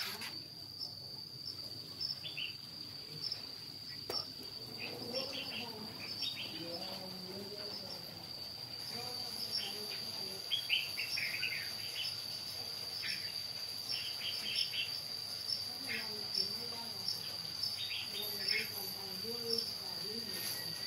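Insects trilling in one high, unbroken tone with a faint pulse about twice a second, with scattered short high chirps over it.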